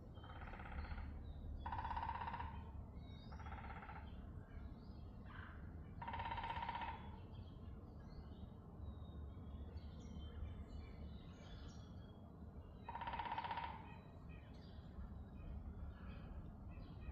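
A woodpecker, heard in five bursts each under about a second long at uneven gaps, over a steady low background rumble.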